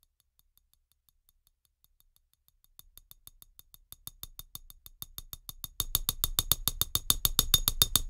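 Sampled clicks of a chopstick striking a ramekin, triggered again and again from one key of a software sampler at several a second, each with a short high ring. They are barely audible at first, then grow steadily louder as the playing moves up through the soft, medium and loud velocity layers.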